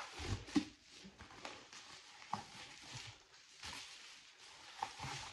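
Bubble wrap and plastic packaging rustling and crinkling as a parcel of books is unwrapped by hand, with a few knocks of the items being handled.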